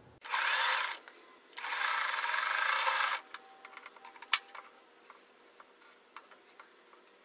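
Electric sewing machine stitching in two short runs, the first about a second long and the second about a second and a half, each one a seam joining a pair of small fabric squares. A few light clicks follow.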